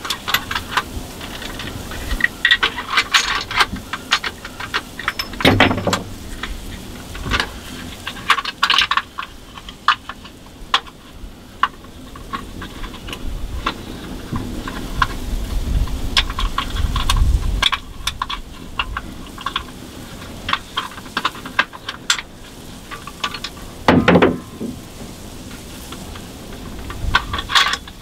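Clatter of a hunter handling gear at close range: scattered clicks, rattles and knocks, with two louder thumps, one about six seconds in and another a few seconds before the end.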